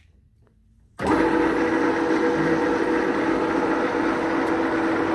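Takang 17x80 lathe starting up suddenly about a second in, then running steadily with a constant hum and whine from its motor and spindle drive.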